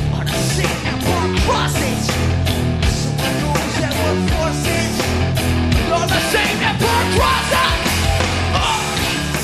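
Loud heavy rock music with a driving drum beat and bass.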